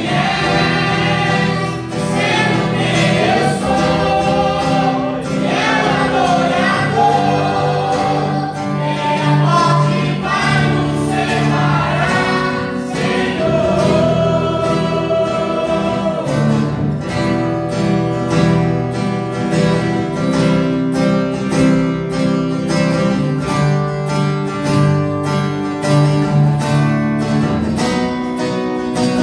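Live gospel worship song: several singers on microphones over an amplified band with guitar and drums. The singing is strongest in the first half, after which the band carries on more steadily.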